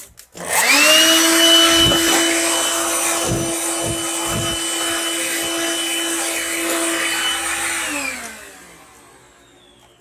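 Corded stick vacuum cleaner switched on: its motor whine rises to a steady high pitch and runs for about seven seconds, with a few dull thumps while it runs. It is then switched off, and the whine falls in pitch and fades as the motor winds down.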